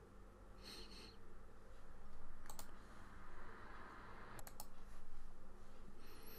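A few sharp computer mouse clicks, two of them close together twice, with short bright electronic blips about a second in and near the end over a faint steady hum.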